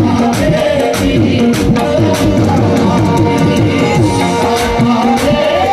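Live ghazal music: hand-drum strokes keep a steady beat under a held drone, and a melodic voice-like line glides through a long note near the end.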